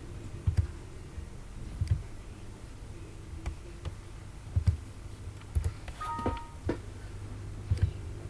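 Computer mouse clicks, spaced a second or so apart, over a low steady hum. About six seconds in, a brief run of short tones steps down in pitch.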